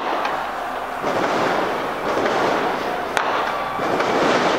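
Crowd across the neighbourhood cheering and yelling in celebration of a goal, with firecrackers going off: two sharp bangs, one right at the start and one about three seconds in.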